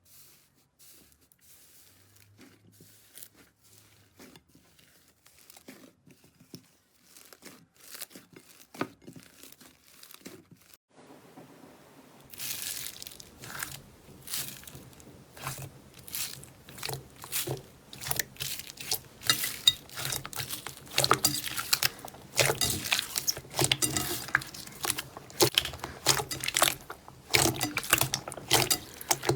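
Slime being squeezed and poked: a few faint clicks at first, then from about twelve seconds in, a dense, quickening run of sharp crackles and pops that grows louder.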